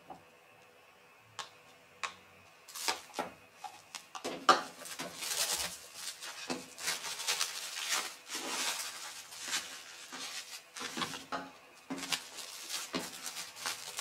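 Plastic cling film crinkling and rustling as hands wrap and press portions of cooked rice, starting about three seconds in, with a small click before it.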